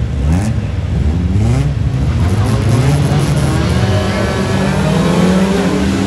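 Several old saloon race cars launching from the start of a heat, their engines revving hard and climbing in pitch through repeated rises as they pull away together.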